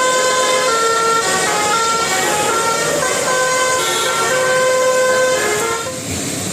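Bus telolet horn, a Basuri multi-tone air horn, playing a tune of held and stepping notes that cuts off near the end.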